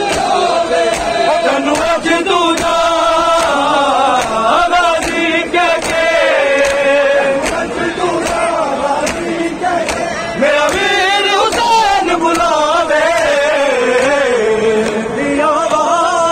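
Men's voices chanting together in a melodic lament, typical of Muharram mourning, over a steady, regular beat.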